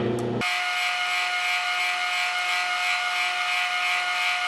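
Metal lathe running steadily while turning down brass bar stock, an even machine whine with a steady hiss of the cut.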